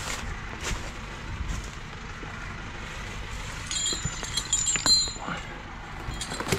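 Footsteps crunching and rustling through dry leaf litter and twigs, with a quick run of metallic clinks that ring briefly, about four to five seconds in, from the rigging on a forestry winch cable.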